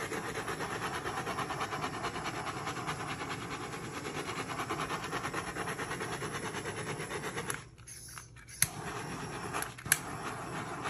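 Handheld butane torch running with a steady fluttering flame hiss, heating the wet epoxy on a resin cutting board so it flows. The flame cuts out briefly about seven and a half seconds in, then resumes, with two sharp clicks.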